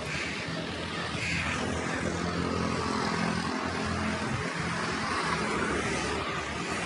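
A motor vehicle's engine running nearby, a low steady drone that grows a little louder, over the hiss of street traffic.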